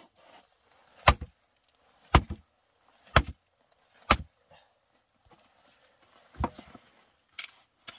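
Hatchet chopping firewood: four sharp blows of the blade into a log about a second apart, then after a pause one more heavy blow and two lighter knocks near the end.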